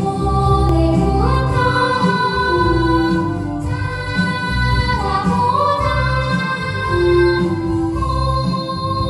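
Three children singing a Korean children's song (dongyo) together into handheld microphones, over an instrumental accompaniment. The melody is made of held notes with sliding changes of pitch.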